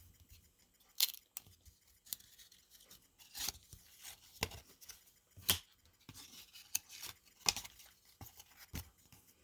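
Trading cards being handled and flipped through: irregular light snaps and short sliding rustles, roughly one every second.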